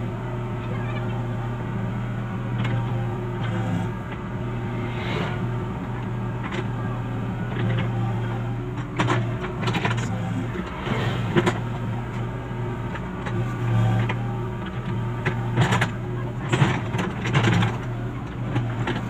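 Komatsu PC75US-3 excavator's diesel engine running steadily, with scattered sharp knocks and clanks that come more often in the second half.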